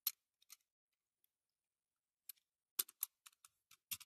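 Faint, sparse clicks and light taps of small parts being handled and pressed into a die-cast toy car, with a quick cluster of several clicks about three seconds in.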